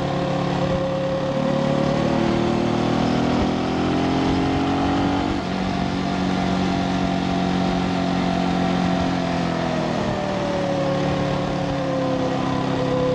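Brixton Felsberg 250's single-cylinder engine pulling on the road, heard from the rider's seat over wind rush. Its pitch climbs for about five seconds, steps down once at a gear change, holds steady, then falls as the throttle eases off near the end.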